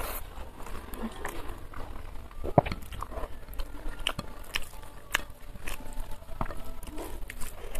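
Eating sounds from a person eating rice and egg curry by hand: chewing and mouth clicks, with fingers mixing rice on a plate, in irregular small clicks and one sharper click about two and a half seconds in.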